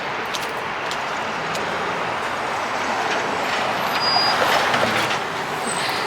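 City street traffic: a steady rush of passing vehicles that grows louder about four seconds in.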